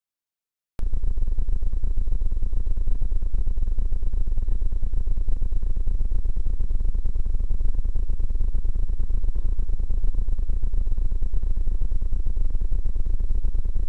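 Loud, steady low buffeting noise on the camera's microphone, starting abruptly about a second in. It does not come from the Smart fortwo's engine, which is not running.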